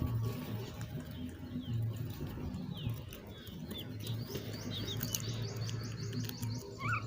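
Small birds chirping: many short, high chirps, often in quick runs of several, over a steady low hum.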